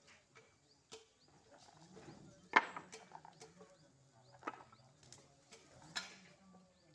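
Scattered sharp knocks and clanks of work on a building site, a few seconds apart, the loudest about two and a half seconds in. Birds chirp faintly in the background.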